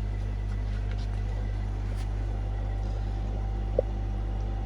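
Steady low hum of fish-room aquarium equipment running, with one brief blip about four seconds in.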